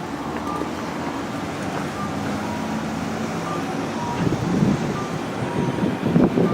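Street traffic at a busy intersection with short electronic beeps repeating about twice a second, alternating between two close pitches, typical of a vehicle's warning beeper. From about four seconds in, louder irregular gusts of wind buffet the microphone.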